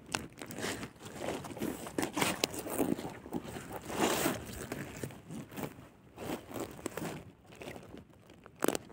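Fine mesh fishing net and a plastic sheet rustling and crinkling in irregular bursts as hands pull a rohu fish out of the net.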